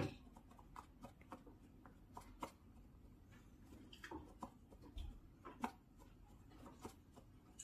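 Ragdoll cat clawing, biting and bunny-kicking a toy: faint, scattered scratching and soft clicks, a little busier past the middle.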